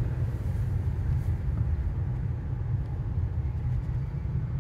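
Steady low rumble of a 2020 Kia Telluride SX V6 under way, engine and tyre noise heard from inside the cabin.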